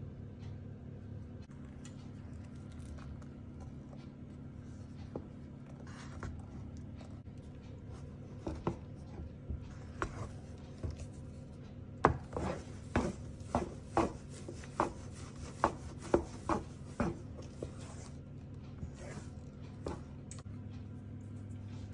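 Wooden spatula stirring and scraping a thick purple paste in a nonstick frying pan, with a run of knocks against the pan about once or twice a second from about eight to seventeen seconds in, the loudest a sharp knock about twelve seconds in. A steady low hum runs underneath.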